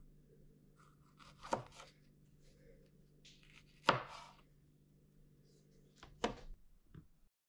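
Kitchen knife slicing strawberries on a cutting board: three sharp knocks of the blade hitting the board, roughly two and a half seconds apart, with softer cutting and handling noises between them.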